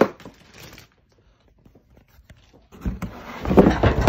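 Cardboard box and foam packing inserts being handled: a sharp knock at the start, a short pause, then from about three seconds in a run of loud scraping and rustling.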